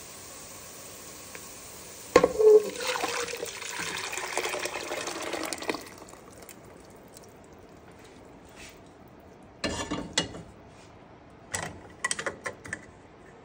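Blended red chile sauce poured into a hot pot of sautéed onions: a sudden loud splash and hiss about two seconds in that lasts about four seconds. Near the end come a few sharp clinks and knocks against the pot.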